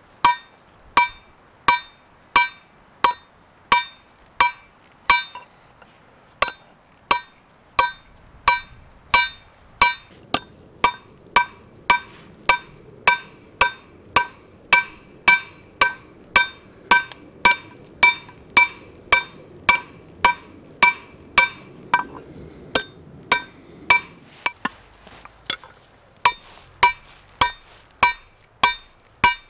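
Hand hammer striking a hot mild steel rod on a steel block anvil, forging an arrowhead: steady blows about two a second, each with a bright metallic ring. The hammering pauses briefly twice, about five seconds in and near the end.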